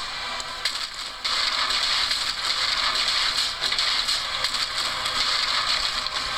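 Soundtrack of an animated fight scene played through a screen's speaker: a steady, crackling noise that starts and gets louder about a second in, with no speech or clear music.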